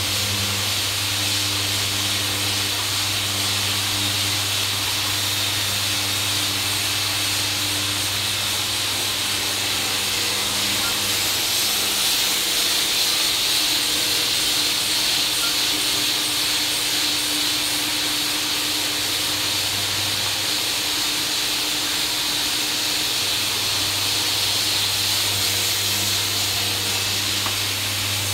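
Electric walk-behind disc floor sander running steadily as it sands bare deck boards: a constant low motor hum under a loud, even hiss.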